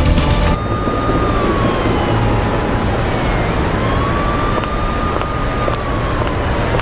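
An emergency-vehicle siren wailing slowly, its pitch falling, rising and falling again, over the steady noise of city traffic. It begins about half a second in.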